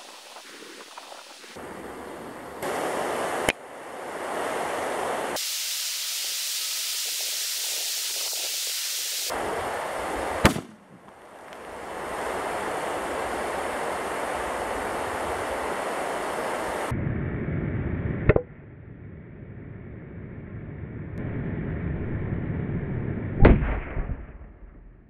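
Propane torch flame hissing steadily against a heated aerosol can of engine degreaser, the hiss starting and stopping abruptly several times. Four sharp pops as the overheated can ruptures and sprays out its contents, the loudest near the end.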